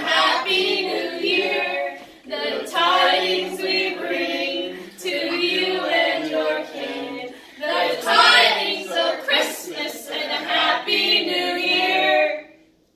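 A small group of voices, adults and children, singing together without accompaniment, in phrases broken by short pauses for breath; the singing stops shortly before the end.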